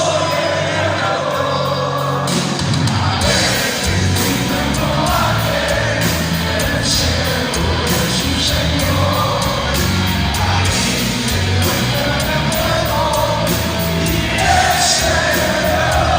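Heavy metal band playing live, with singing; the bass and drums come in about two and a half seconds in and drive a steady beat from then on.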